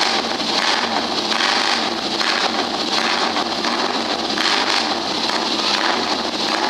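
Vintage auto-race motorcycle engine running loud and steady, a harsh, noisy exhaust sound with a faint uneven pulse.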